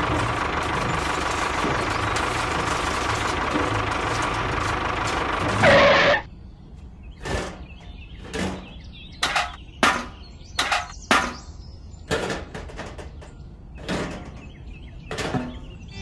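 A small electric motor in a model tractor runs with a steady whir, then cuts off abruptly about six seconds in. After that come scattered clicks and knocks of small plastic and metal model parts being handled.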